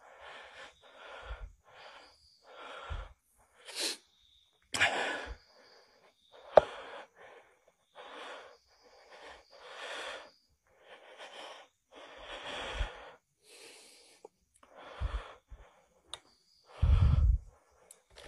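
A person breathing hard and fast close to a phone microphone, a rapid run of short hissy breaths, with a few dull bumps of the phone being handled, the loudest near the end.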